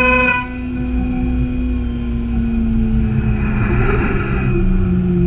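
CaMaster CNC router spindle and its dust collection running over a wood workpiece, with a steady low rumble underneath. The spindle's loud whine cuts back about half a second in, and its tone then sinks slowly in pitch. A short rush of noise comes near the middle.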